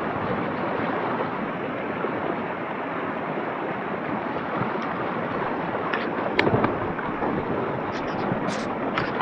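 Steady rush of fast-flowing waterfall water, with a few short, sharp knocks about six seconds in and again near the end.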